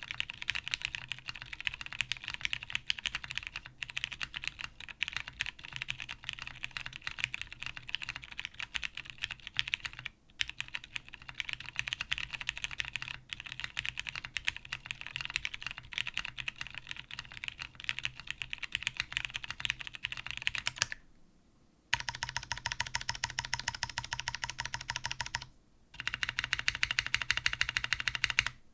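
Typing on a TGR Jane V2 CE mechanical keyboard with lubed Cherry Hyperglide Brown tactile switches on an O-ring-mounted FR4 half plate: steady, dense keystrokes. About 21 seconds in, the typing stops for a moment, then the stabilized keys are pressed over and over in quick, even succession, with a brief pause partway through.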